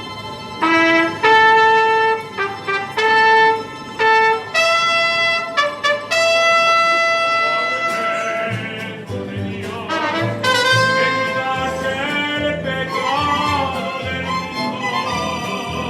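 Mariachi band playing: trumpets open with a phrase of held notes, then about eight seconds in violins and a rhythmic plucked bass line fill in under the melody.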